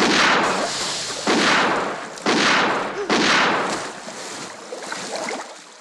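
Four pistol shots, each ringing out and dying away, the first at once and the others a little under a second apart.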